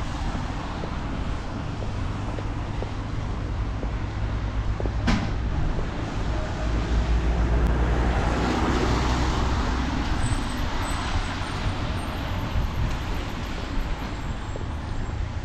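Road traffic on a wet street: a steady low rumble, with a car's tyres hissing on the wet asphalt as it passes about halfway through. A single sharp click about five seconds in.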